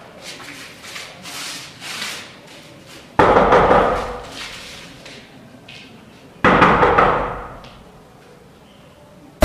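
Knocking on a wooden door, a run of light raps, followed by two heavy bangs on the door about three seconds apart, each ringing out for about a second.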